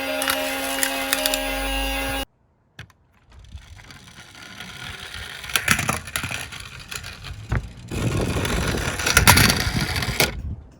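A steady humming tone stops abruptly about two seconds in. After a short silence comes the clattering, scraping rattle of a die-cast toy car rolling over a toy slope track, with scattered clicks. The rattle grows loudest near the end and then stops.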